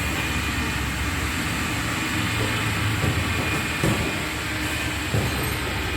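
K50 double-head aluminium cutting saw running with a steady mechanical hum and clatter, with a couple of brief knocks about four and five seconds in.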